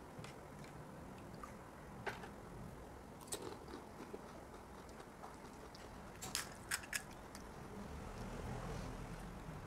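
Crisp pani puri shells crunching in faint, scattered crackles, with a quick run of three sharper cracks about six to seven seconds in.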